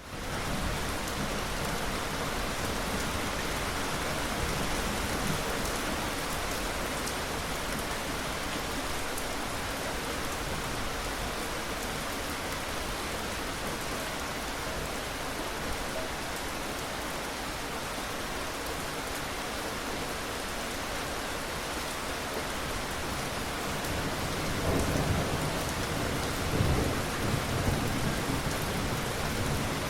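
Steady rain falling, with low rumbles of thunder; the loudest roll comes near the end.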